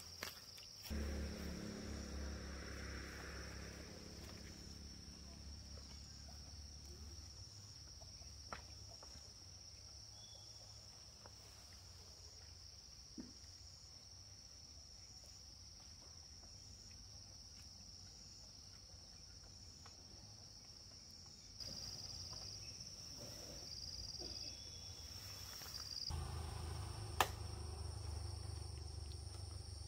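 Insects calling in one steady, high, unbroken tone, with a low rumble underneath and a few sharp clicks, the loudest near the end.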